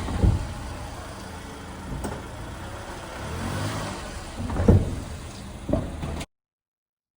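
Mazda Demio being driven, with low running noise and three short, heavy clunks as it goes over bumps; the second, about two-thirds of the way in, is the loudest. This is the car's clunking noise over bumps. The sound cuts off abruptly shortly before the end.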